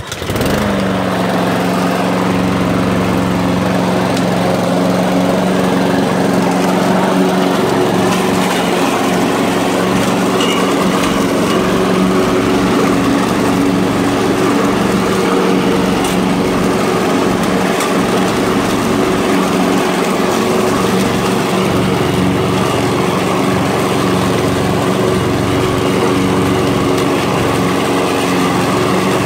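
Walk-behind gas lawn mower engine running steadily as the mower is pushed across grass, coming in suddenly at the start and holding an even pitch and level.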